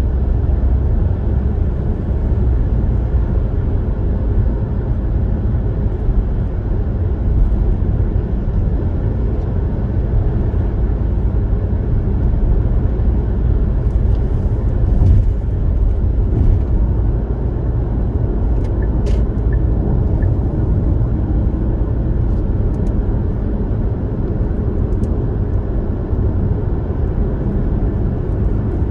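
Steady low road and engine rumble of a car cruising on an expressway, with a few faint ticks midway.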